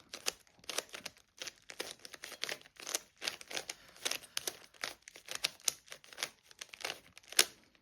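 Rubik's Cube being twisted quickly by hand: an irregular run of plastic clicks and rattles as the layers turn, with one louder click near the end.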